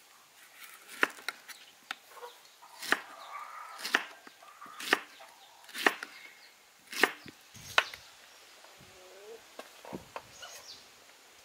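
A large kitchen knife slicing pineapple and knocking against a wooden cutting board, a sharp chop about once a second, turning to lighter taps near the end.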